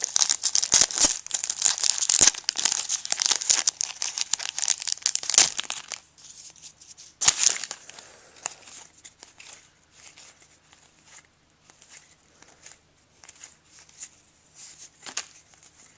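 Trading card pack wrapper crinkling and being torn open for about six seconds, with one more sharp crinkle about a second later, then quiet rustling and light ticks as the cards are handled.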